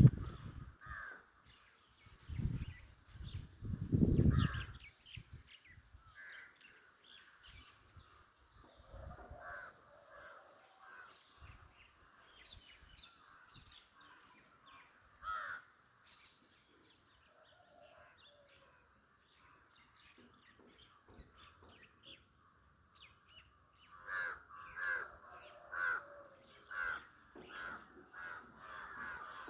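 Birds calling: scattered short calls, then a run of louder calls repeated about once a second near the end. A few low thumps in the first few seconds.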